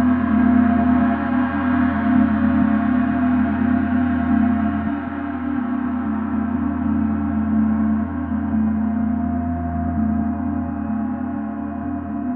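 Large gong ringing on after being struck, a dense wash of many overlapping tones over a strong low hum, slowly fading with no new strike.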